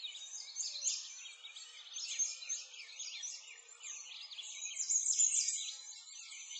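A dense chorus of small songbirds, many quick chirps and trills overlapping without a break.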